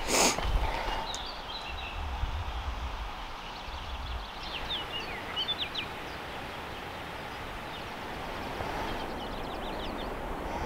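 Small birds chirping in quick, high, short notes over a steady background hiss, with a low rumble in the first half and a brief knock right at the start.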